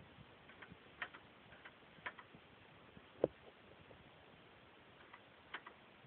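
Faint, irregular clicks from a 2011 Dodge Charger's trunk lock going off by itself, roughly one a second, with one duller knock about three seconds in. The lock firing on its own is the sign of the wiring short that keeps opening the trunk.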